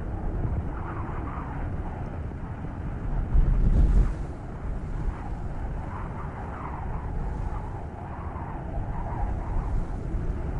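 Snowstorm wind blowing steadily, with a louder low rumble a few seconds in.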